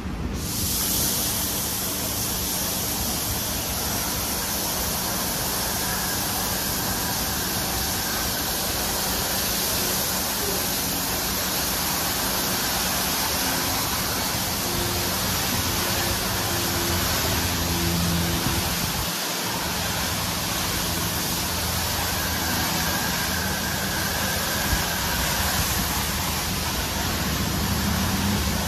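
PDQ LaserWash M5 touchless car wash spraying water from its travelling overhead arm onto a car: a loud, steady hiss that switches on suddenly and holds, over a low hum.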